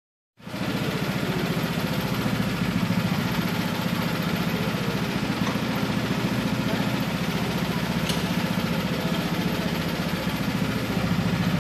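Go-kart engine idling steadily.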